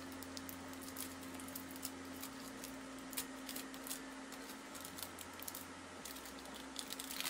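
Cardboard blind box and plastic packaging being handled and opened: scattered small crinkles and clicks over a faint steady hum.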